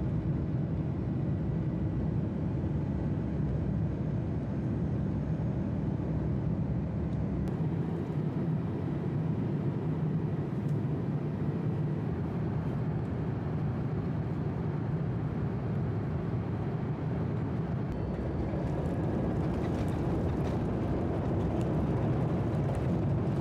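Jet airliner cabin noise: a steady, dense rumble of engines and airflow heard from inside the cabin, shifting slightly a couple of times as the footage cuts between flight stages.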